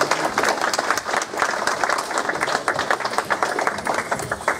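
A small audience clapping and applauding, a dense run of handclaps.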